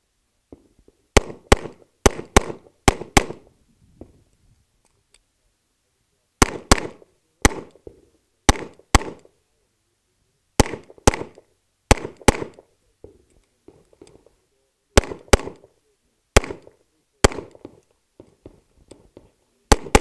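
Glock pistol being fired rapidly, about twenty shots, mostly as pairs about half a second apart, in strings separated by pauses of a few seconds.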